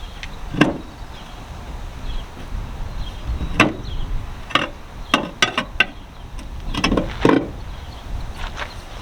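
Tire tools prying and knocking against a small tractor tire's bead and steel rim as the tire is worked back onto the wheel over the patched tube. About a dozen irregular knocks and clanks, the loudest a little past a third of the way in and again near the three-quarter mark, some in quick runs of two or three.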